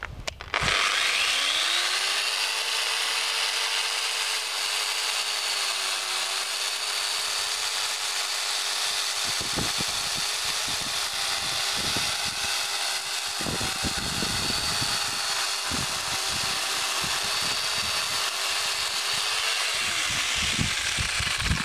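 A 900-watt Fiolent angle grinder with a chainsaw attachment, its chain sawing through a thin tree trunk. The motor starts about half a second in with a rising whine and runs steadily. From about halfway through the chain bites into the wood with a rough, uneven rasp, and the motor winds down near the end.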